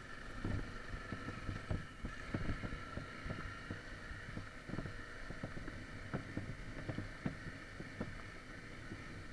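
Off-road motorcycle engine running at a low steady speed, with frequent irregular knocks and rattles as the bike rides over loose stones and gravel.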